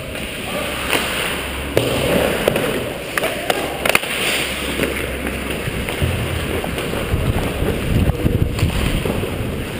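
Ice hockey skates scraping and carving on the ice, heard up close from a helmet-mounted camera, with several sharp knocks in the first four seconds. A heavy low rumble comes in over the last few seconds.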